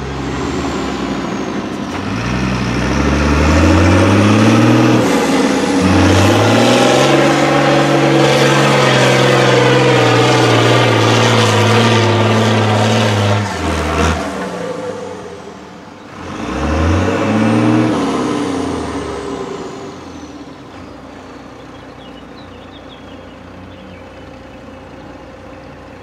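Diesel engine of a MAN 6x6 prototype trial truck revving hard under load. It holds high for several seconds, drops off, revs up sharply once more, then falls back to a low, steady run.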